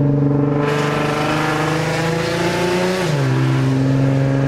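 Infiniti Q50's engine heard from inside the cabin, running straight out of the test pipes with no axle-back fitted: a loud, steady exhaust drone at part throttle. The pitch drops about three seconds in, as the revs fall.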